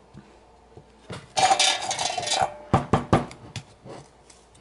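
Silica desiccant beads rattling as they are poured out of a cut-open aluminium drink can into an air-suspension compressor's dryer housing, a dense pour of about a second with a faint ring from the can. A few sharp clicks follow as the plastic dryer parts are handled.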